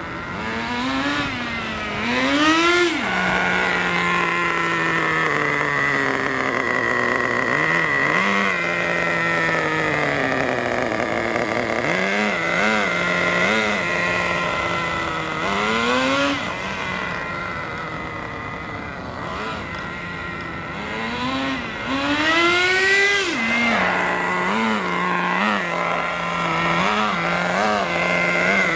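Nitro RC car's small two-stroke glow engine running. It is revved up and down in several long throttle sweeps, settles back to a steady lower note between them, and gives a run of quick throttle blips near the end. A steady high whine sits over it.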